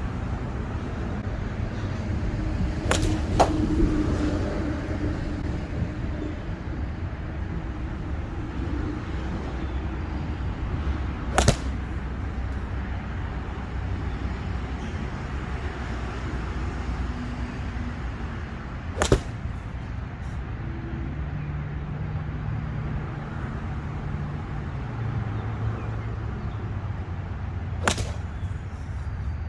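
A golf club striking a ball four times, a sharp crack roughly every eight seconds, over a steady low rumble.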